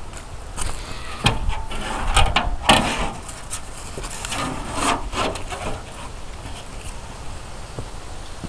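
Rusted steel truck parts being handled on wooden pallets: a run of scrapes and knocks of metal against wood, loudest in the first three seconds, then fading out after about six seconds.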